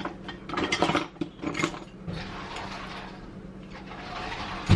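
Metal kitchen utensils clattering and rattling as someone rummages through a drawer, ending in a sharp knock near the end.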